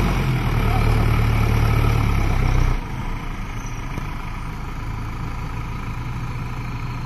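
Tractor diesel engine running loudly, then dropping back abruptly about three seconds in to a quieter idle.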